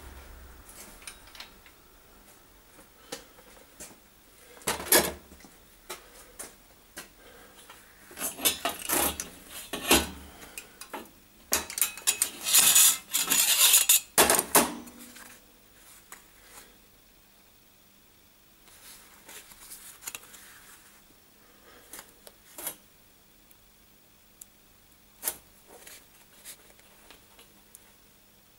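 Metal clanking and clinking as a locking welding clamp is taken off a thin sheet-metal strip and the strip is handled on a steel grating. It is loudest in a run of clatter about halfway through, then a few light scattered taps.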